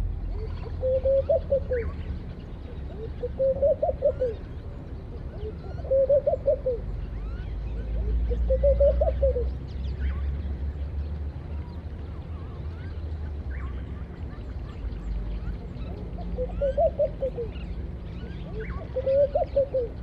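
Laughing doves cooing: a soft bubbling call that rises and falls in pitch, repeated about every two and a half seconds, six calls in all with a pause of several seconds in the middle. Faint chirps of small birds and a steady low rumble lie underneath.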